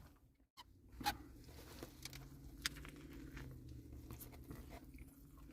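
Faint rustling and a few soft clicks of a crispy chicken sandwich and its wrapper being handled, over a low steady hum.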